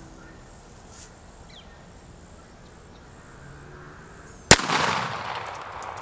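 A single shotgun blast firing a slug, a sharp crack about four and a half seconds in, with its echo trailing off over about a second and a half.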